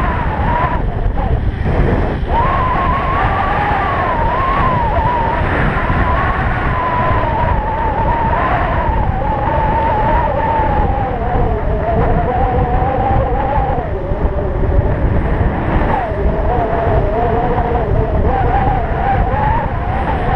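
Stealth Bomber electric bike speeding down an asphalt road. Heavy wind rumble on the helmet-mounted camera, with a whine from the bike that rises and falls in pitch as the speed changes and breaks off briefly twice.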